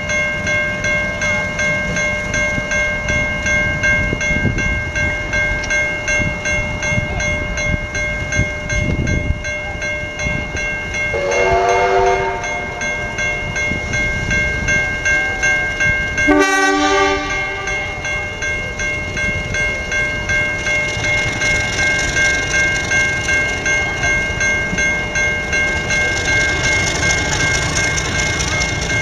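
Level crossing warning bell ringing in evenly repeated strokes over the low rumble of a slowly approaching train. The train gives two short warning blasts, one about eleven seconds in and a second, sharper-starting one about five seconds later.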